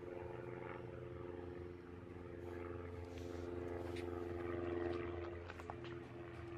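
Forge running with a steady machine hum, a few light clicks and taps of metal in the second half.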